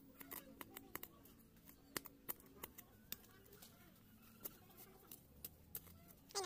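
Bare hands scraping and crumbling dry soil and roots while digging around a purple yam tuber: a faint, irregular string of small scratchy clicks and crackles.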